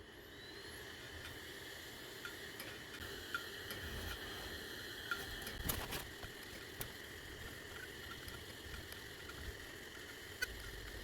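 Hard disk drive spinning up with a whine that rises in pitch over the first second, then running with a steady high whine and hum. Scattered light seek clicks sound over it, one sharper click near the middle.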